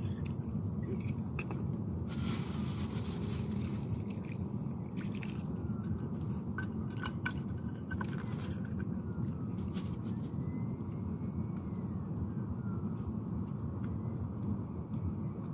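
Soup being sipped and slurped from bowls, with scattered small clicks and clinks of bowls and utensils, over a steady low rush of background noise.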